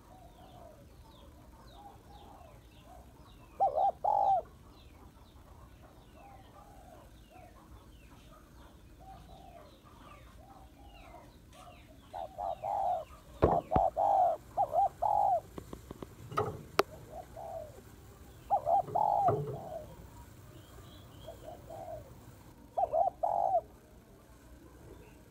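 Spotted dove cooing in four short bouts of a few notes each, the longest in the middle. Small birds chirp faintly in the background, and there are a few sharp knocks near the middle.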